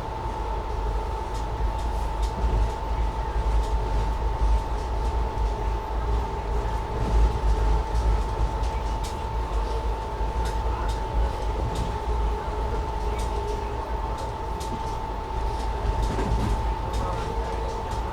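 Inside a running Indian Railways 2nd AC coach: a steady low rumble of the train moving on the rails, with a constant steady hum and scattered light clicks and rattles.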